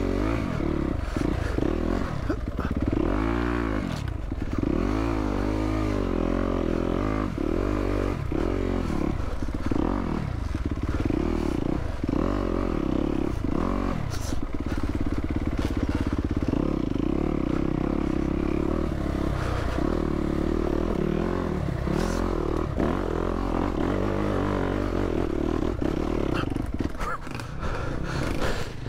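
Yamaha YZ250F dirt bike's four-stroke single-cylinder engine revving up and down again and again as it is ridden along a rough, rooty trail, heard from a mic inside the rider's helmet. The engine holds steadier for several seconds in the middle, with a couple of sharp knocks in between.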